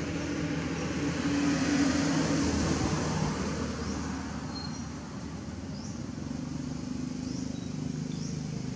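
A motor vehicle's engine hum, swelling about a second or two in and then easing off, with a few faint high chirps near the end.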